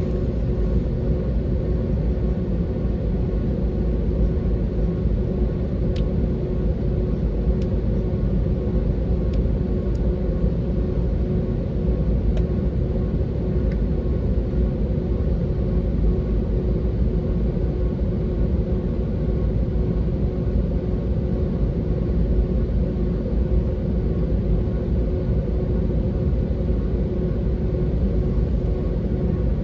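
Steady cabin rumble of a Boeing 737 airliner taxiing, its jet engines at a constant low setting with a steady hum running through it. A few faint ticks sound in the first half.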